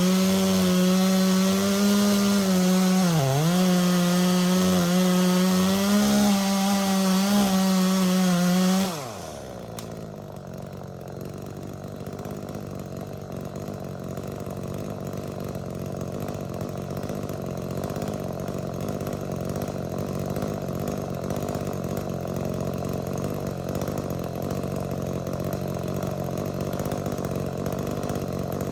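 Two-stroke chainsaw cutting wood at full throttle, its pitch dipping twice as it bogs under load. About nine seconds in, the throttle is released and the pitch falls away. The saw then runs on more quietly with a low, steady hum that slowly grows louder.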